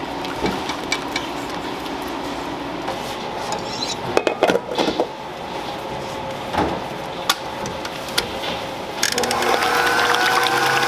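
Clinks and knocks of a stainless steel mixing bowl and wire whisk being handled. About nine seconds in, a stand mixer starts whipping egg whites, its motor running steadily and rising slightly in pitch.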